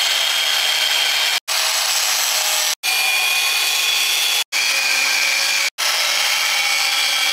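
Handheld angle grinder with a cutoff wheel cutting steel: a steady, high-pitched grinding whine, broken off sharply four times for an instant.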